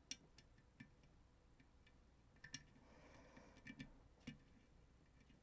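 Faint, irregular small clicks of a pick working the pins of a DOM RS Sigma lock, its magic DOM drivers clicking as they are lifted and set. The clicks sound a lot like ASSA barrel drivers.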